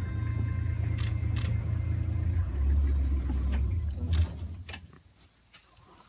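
Safari vehicle's engine idling with a steady low rumble, then cut off about four seconds in, with a few light clicks and knocks.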